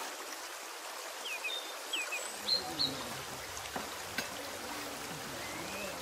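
Outdoor ambience: a steady hiss like running water, with a few short high bird chirps and, from about two seconds in, faint voices.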